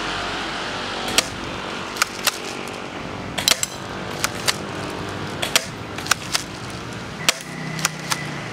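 Spring-powered airsoft pump-action shotgun being cocked and fired again and again: about a dozen sharp clicks and snaps, several in close pairs.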